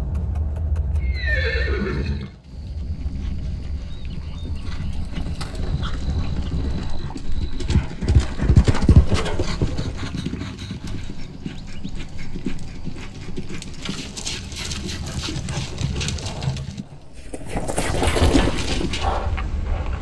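A horse whinnies about a second in, one call falling in pitch. Then it gallops, its hooves pounding on arena dirt, loudest around eight to nine seconds in and again near the end.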